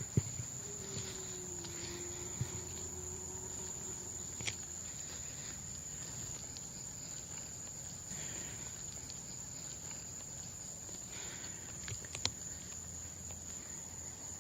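Steady high-pitched chorus of night insects such as crickets, with a faint low wavering sound in the first few seconds and a few scattered sharp clicks.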